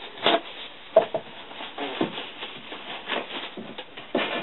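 Irregular handling noises, short rustles and a few light knocks, as a glass paperweight inkwell is held and turned in the hand.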